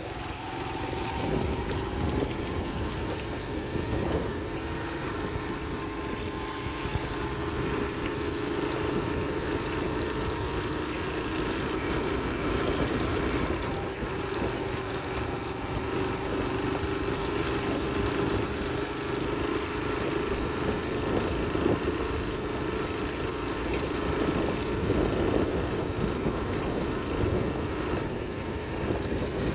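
Yamaha AG125 farm motorcycle's two-stroke single-cylinder engine running at a fairly steady cruising speed, with a low rumble of wind on the microphone underneath.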